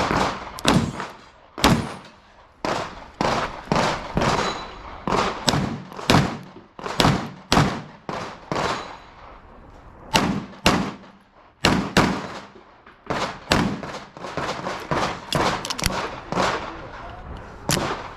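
9mm CZ Shadow 2 Compact pistol fired rapidly, several dozen shots in quick pairs and short strings with brief pauses for target transitions, each shot ringing out with a short echo.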